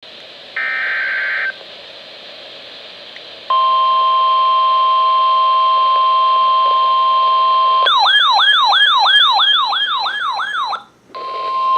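NOAA Weather Radio warning alert: a short burst of warbling digital data tones, then a steady alert tone, then a fast siren-like warble of about four sweeps a second, then the steady tone again. These are the signals that announce a severe thunderstorm warning broadcast.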